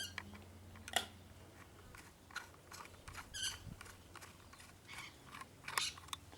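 Handling noise from a K98k Mauser rifle: scattered light clicks and taps of hands and metal parts against the wooden stock, with a few short high chirps in between.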